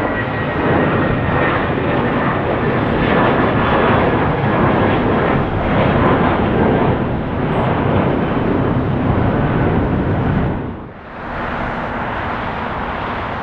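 Loud, steady jet engine noise from an Airbus airliner passing close. About eleven seconds in it dips sharply and a quieter steady hum takes over.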